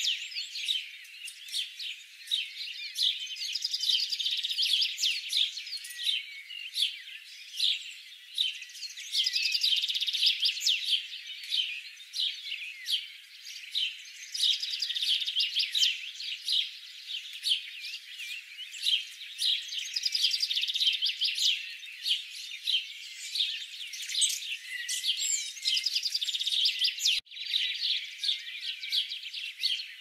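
Many songbirds chirping and singing at once in a dense, continuous chorus, thin and high with nothing deep beneath it. The sound drops out briefly near the end.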